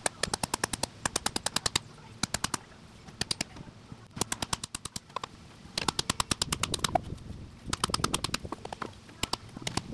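Hammer striking wooden stakes to drive them into the ground: quick runs of sharp strikes, several a second, broken by short pauses.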